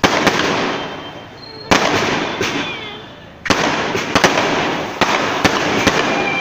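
Diwali firecrackers and fireworks going off. Three loud bangs come about a second and a half apart, each trailing off in a fading hiss. From about halfway there is steady crackling with many sharp pops.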